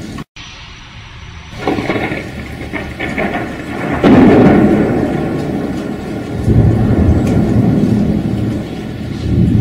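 Thunderstorm: rain with a sudden loud clap of thunder about four seconds in, followed by a long low rumble. There is a brief drop to silence right at the start.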